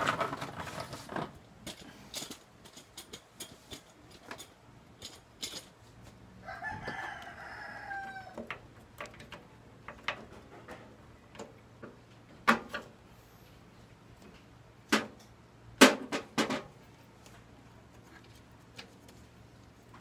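A rooster crows once, about six seconds in, a call lasting about two seconds. Around it come sharp clicks and knocks from hands working at wire connectors and parts inside an opened microwave oven; the loudest of these fall near the start and around the middle.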